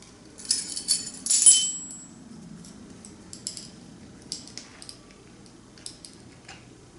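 Kitchen clinks and taps as a teaspoon of vanilla is measured and added to a mixing bowl. A quick run of sharp, ringing clinks comes in the first two seconds, the loudest about a second and a half in, then lighter scattered ticks.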